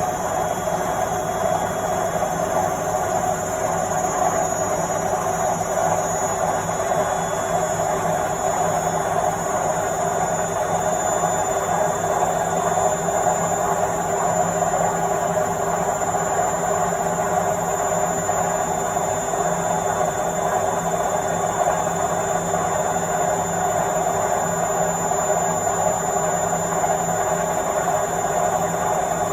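Washing machine on its final spin cycle, the drum spinning at a steady high speed: a loud, even whir and hum with a thin high whine over it.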